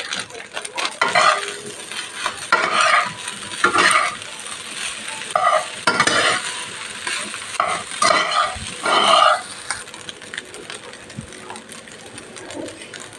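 Fried rice sizzling in a pan while a spatula stirs and scrapes through it in repeated strokes, about eight in the first nine or ten seconds. After that the sizzle goes on alone, quieter.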